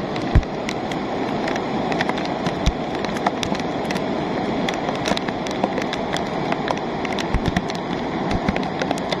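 Steady rush of a rain-driven lahar, a muddy volcanic flood flowing down its channel, under heavy rain, with many sharp ticks throughout and a low thump just after the start.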